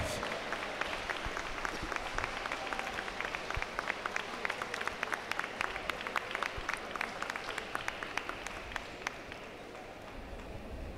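Audience applauding: a dense patter of handclaps that thins out and fades near the end.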